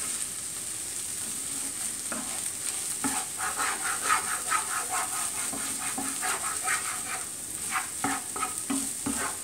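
Masala scrambled eggs (egg bhurji) sizzling in oil in a pan on high flame while a spatula stirs and scrapes them in a run of short, repeated strokes, the moisture being fried off until the eggs turn dry.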